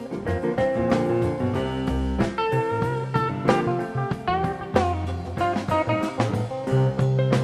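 Background music: guitar playing over a steady drum beat.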